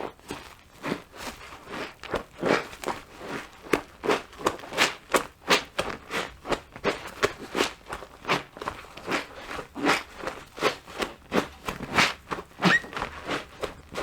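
Wet sponge being squeezed and squished over and over, about two or three squelches a second, with one short rising squeak near the end.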